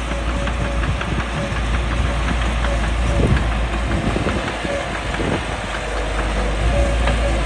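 Caterpillar D3C bulldozer's diesel engine running with a steady low rumble and a scatter of clanks and knocks. A thin whining tone dips briefly twice, about three and five seconds in.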